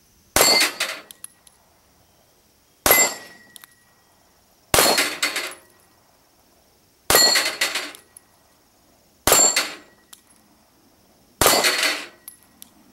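Six 9mm pistol shots from a Glock 26, spaced about two seconds apart, each followed by the clang and brief ring of a steel falling plate being hit and knocked down.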